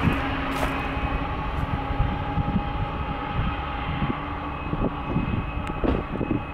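A freight train's loaded centerbeam flatcars rolling past, wheels clacking over the rail joints under a steady rumble with a faint held whine; the clacks come thicker in the last couple of seconds.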